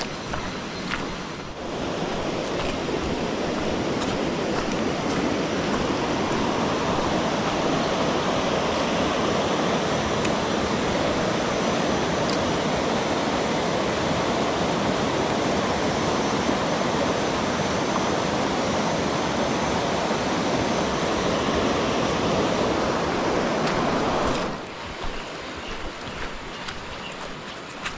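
River rapids rushing over rocks: a steady, loud hiss of water that comes in about two seconds in and drops away suddenly near the end to a quieter rush.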